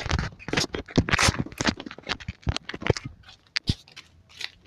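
Hand-held phone handling noise and footsteps: a rapid, irregular run of scrapes and clicks, several a second, thinning out and getting quieter near the end.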